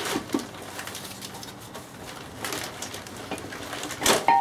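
Metal knocks and clunks from a VW Passat manual gearbox casing being handled and lifted off its gear shafts, with a sharp metallic knock about four seconds in that starts to ring.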